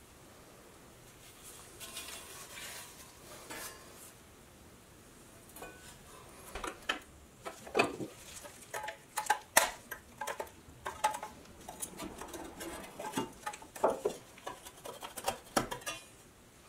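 Pressed-steel toy truck parts clinking and tapping as they are handled and set on a wooden bench. Light rustling at first, then a busy run of sharp metallic clinks from about halfway on.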